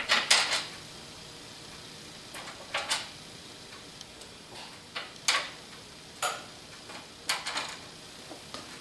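Scattered sharp clicks and knocks of hard objects being handled, coming in a few short clusters several times.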